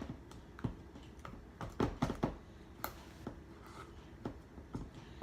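Slime being squished and poked by hand close to the microphone: irregular soft clicks and squelches, a few louder ones about two seconds in.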